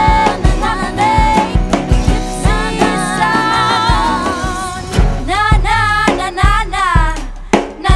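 A song with a female lead vocal singing a melody with vibrato, over a beat with a regular kick drum and a guitar and band backing.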